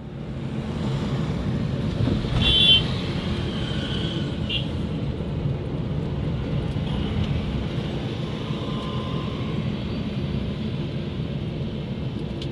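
Steady road and engine noise of a car heard from inside the cabin, a low even rumble. A short high-pitched beep sounds about two and a half seconds in, with a briefer one about two seconds later.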